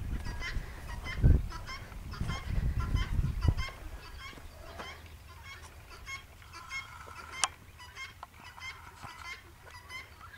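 A flock of birds calling, many short calls repeating several times a second without a break, with low rumbling and a thump in the first few seconds.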